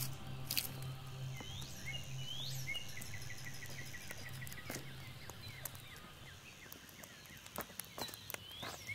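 Campfire of split wood and kindling crackling with scattered sharp pops, while birds chirp and insects trill in the background.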